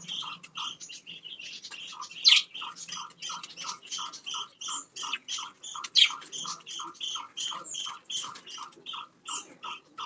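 Budgerigars chirping: a rapid, even run of short chirps, about three a second, with two louder rising calls about two seconds and six seconds in.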